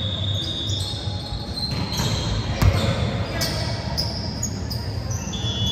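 Indoor volleyball game in a gym: several sharp ball hits, the loudest about two and a half seconds in, with short high sneaker squeaks on the court floor and players' voices in the background.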